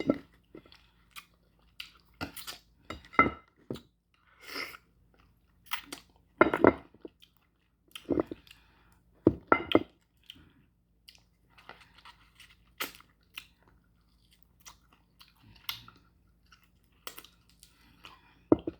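A person chewing slow-cooked beef bone marrow and meat close to the microphone, with irregular wet mouth smacks and sharp clicks.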